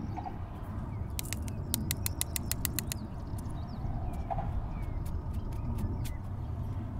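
Outdoor ambience: a steady low rumble with faint bird chirps. About a second in, a quick irregular run of sharp clicks begins, a few each second, thinning out by about six seconds.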